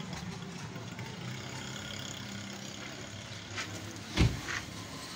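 A vehicle engine idling with a steady low hum. About four seconds in there is a single heavy thump, with a lighter knock just before it and another just after.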